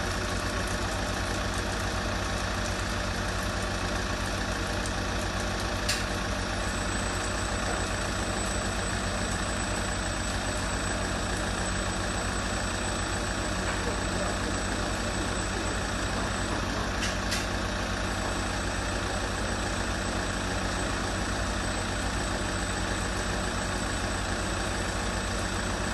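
Touchless automatic car wash machine running: a steady mechanical noise with a low hum and an even hiss. There are sharp clicks about six seconds in and again near seventeen seconds, and a thin high whine from the first click onward, breaking briefly around the second.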